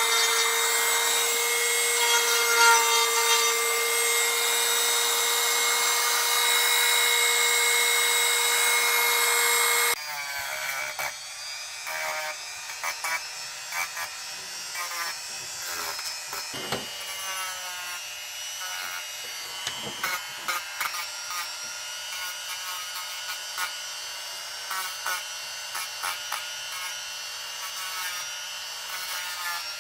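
Dremel rotary tool running with a steady high-pitched whine as it carves into soft wood. About ten seconds in the whine cuts off abruptly, leaving quieter, irregular scraping and scratching on the wood.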